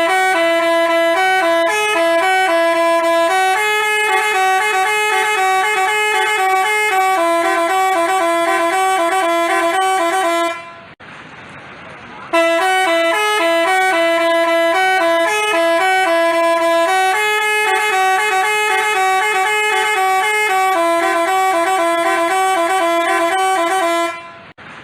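Telolet multi-tone bus horn (Basuri type) playing a melody of stepping notes. The tune is played twice, each time for about eleven seconds, with a break of about a second and a half between.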